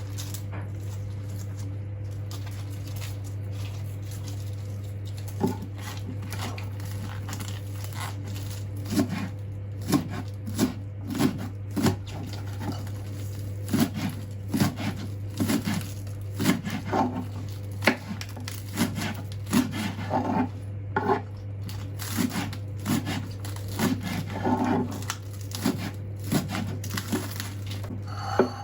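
Kitchen food preparation: irregular taps, knocks and clinks of utensils and dishes on a counter, starting about five seconds in, over a steady low hum.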